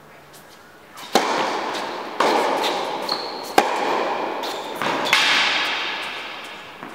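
Tennis rally on an indoor court: four sharp hits of racket on ball and ball on court, about a second apart, each ringing on in the hall's echo, with a brief high squeak partway through.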